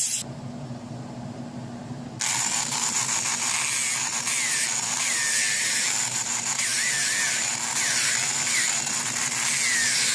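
A low hum until about two seconds in, when a Proxxon long-neck angle grinder with a small sanding disc is heard grinding wood: a steady high whine over harsh sanding noise, with short squeals that dip and rise in pitch as the disc bites.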